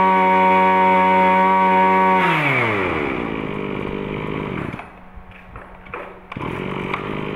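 A Kawasaki 26cc two-stroke brush cutter engine at high revs. About two seconds in the throttle is released and the revs drop to a steady idle, with a brief dip in level before the idle evens out again.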